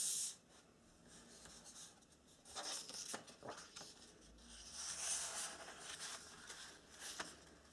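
Sheets of origami paper handled on a wooden tabletop: uneven rustling and sliding, with a few sharp crinkles as a sheet is folded over.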